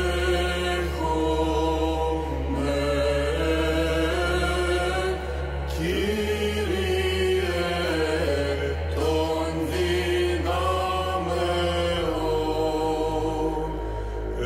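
Small mixed choir singing Byzantine chant a cappella: the melody moves and bends over a steady low held drone (the ison), which shifts to a new pitch twice.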